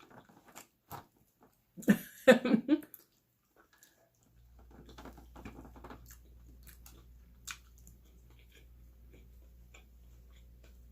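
Close-miked mouth sounds of someone eating: soft chewing with small wet clicks and smacks, and a short voice sound about two seconds in. A steady low hum starts about four seconds in.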